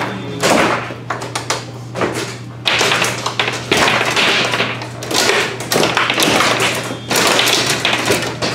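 Foosball table in fast play: rapid clacks and knocks of the ball struck by the plastic players and hitting the walls, with rods sliding and banging in their bearings. A steady low hum runs underneath.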